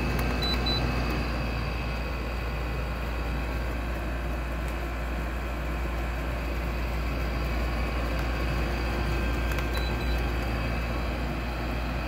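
Window air conditioner running steadily on low fan, with condensate water built up in its base pan being stirred and flung by the fan. The water is collecting even with the drain plug pulled, because of the high humidity. Two short high beeps sound, one just after the start and one near the end.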